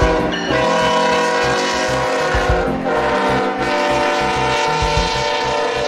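Diesel freight locomotive's air horn sounding a long, steady chord. It drops in pitch twice as the locomotive passes, over the low rumble of the passing train.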